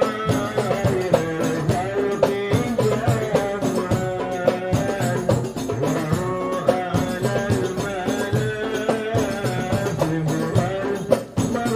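Sholawat, an Islamic devotional song, sung into a microphone over a steady rhythm of hand percussion with jingling tambourine.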